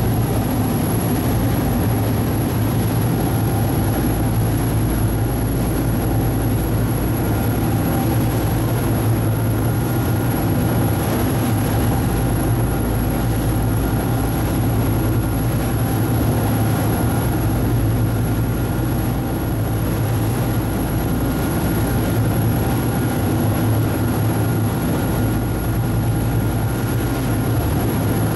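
Passenger boat's engine running steadily during the crossing, a constant low drone with faint steady higher tones over it.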